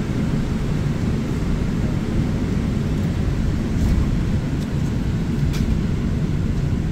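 Inside the cabin of a Chevrolet 4500 ARBOC Spirit of Freedom cutaway bus: a steady low engine and drivetrain rumble, with a few faint rattles or ticks in the second half.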